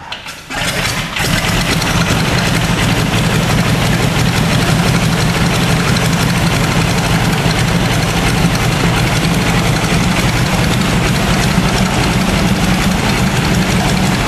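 A Stearman biplane's radial engine comes to life about half a second in, then settles into a loud, steady idle.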